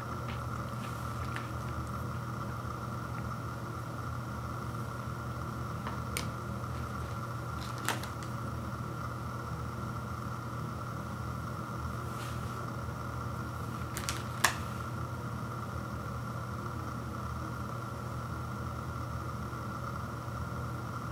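Steady low machine hum, with a few faint clicks as thin sandwich cookies are handled; the sharpest click comes about two-thirds of the way through.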